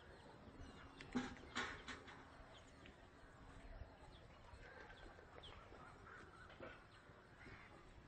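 Faint bird calls from a nesting colony, with two short, sharper sounds about a second and a half in.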